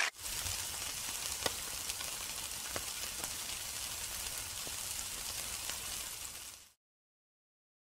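Skewered meat sizzling on a grill: a steady crackling hiss with an occasional sharp pop, fading out near the end.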